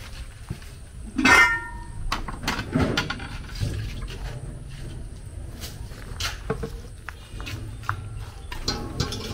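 Aluminium cooking pots knocking together as they are handled. There is one loud ringing clang about a second in, followed by lighter knocks and clicks.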